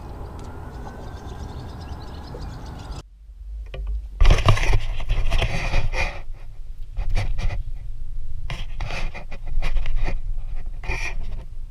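Handling noise on the camera and its pole: irregular scraping and rubbing with low wind rumble on the microphone. A steady hiss in the first three seconds cuts off suddenly before it.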